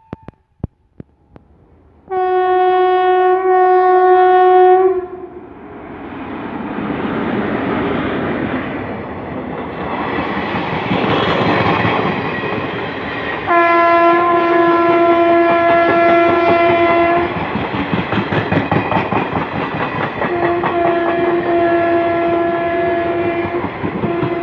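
WAG-7 electric locomotive's horn sounding a long steady blast. The train's running noise then swells as it comes up and runs past, wheels clattering over the rail joints. The horn sounds two more long blasts, the last with a brief break near the end.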